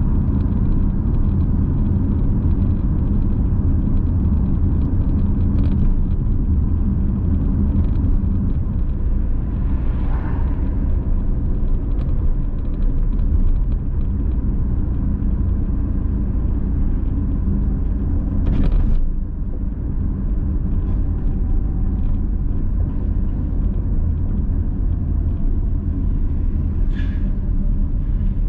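A car's engine and tyre noise as it drives through city traffic: a steady low rumble. A few brief clicks or knocks sound about a third of the way in, about two-thirds of the way in, and near the end.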